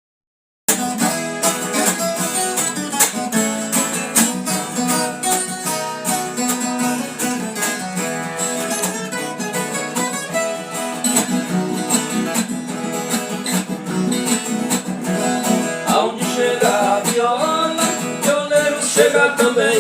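Viola caipira, the Brazilian ten-string folk guitar, played in fast plucked and strummed runs, starting about a second in. A voice comes in near the end.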